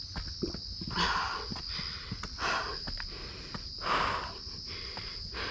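Night insects chirring in a steady high drone over footsteps on trail steps. Three heavy breaths come about a second and a half apart from someone climbing.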